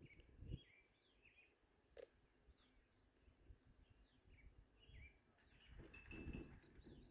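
Quiet outdoor ambience: faint scattered bird chirps and a short high chirp repeating at a steady pace, with a brief low rumble about six seconds in.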